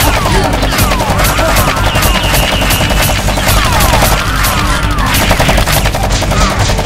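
Rapid automatic gunfire sound effects, a dense unbroken stream of shots, laid over background music.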